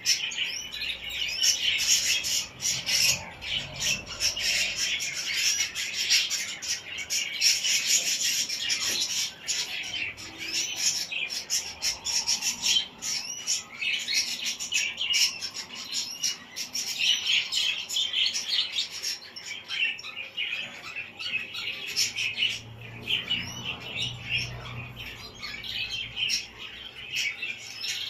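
Caged canaries chirping and twittering together, a dense high-pitched chatter of many birds that keeps up without a break.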